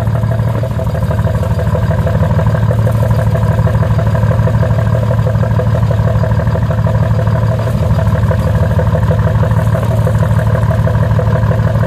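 2005 Dodge Ram's 5.9 Cummins inline-six turbodiesel running steadily at a constant speed. The engine has three cracks in the cylinder head, two bad cylinders and six injectors that all failed testing.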